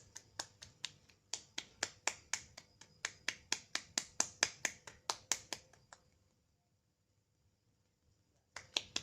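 Quick, even slaps of fingers on bare skin, about four a second: therapeutic tapping during totok syaraf nerve-pressure treatment. The tapping stops about six seconds in and starts again near the end.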